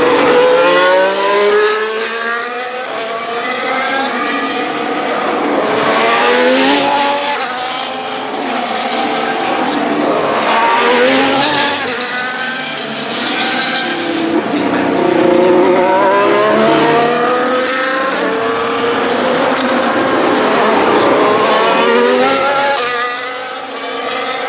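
Formula 1 cars' turbocharged 1.6-litre V6 hybrid engines, several cars passing one after another under acceleration, about five passes in all. Each climbs through the gears in a run of rising notes cut by quick upshifts.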